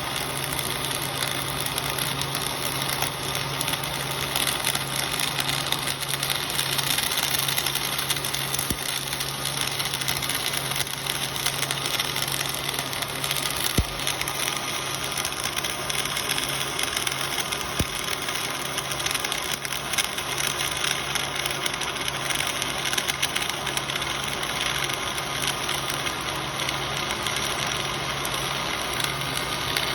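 Electric welding arc crackling steadily while a continuous bead is run, over a steady low hum.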